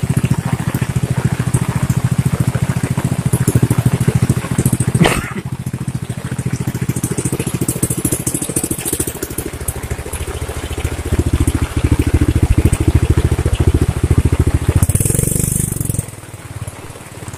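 Small motorcycle engine running at idle with a rapid, steady putter. It gets louder from about ten seconds in and drops away sharply near the end, with one sharp knock about five seconds in.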